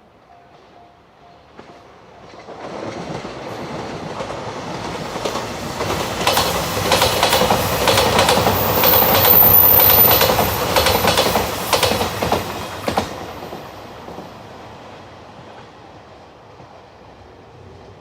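Nanpu limited express diesel train passing. It builds up over a few seconds, then its wheels clack rapidly over the rail joints for several seconds at its loudest, and it fades away.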